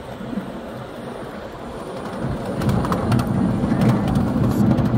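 Ride-on miniature steam train rolling along its narrow-gauge track: a low, noisy rumble that grows louder about two seconds in, with a few sharp clicks.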